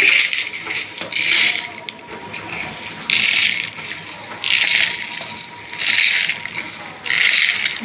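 Roasted urad dal, sesame seeds and dried red chillies poured from a plate into a stainless steel mixer jar, the grains and chillies rattling against the metal. The sound comes in about six short pours, each a second or so apart.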